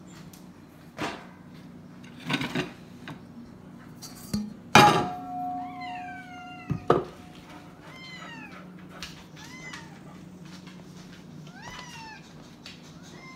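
Domestic cat meowing over and over in short rising-and-falling calls, asking to be fed. Before and among the first meows come several knocks and a loud clatter about five seconds in that rings briefly.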